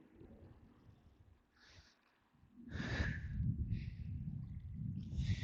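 A man's heavy breathing: short hissy breaths about once a second or so, from a second and a half in, over a low rumble on the microphone that starts partway through.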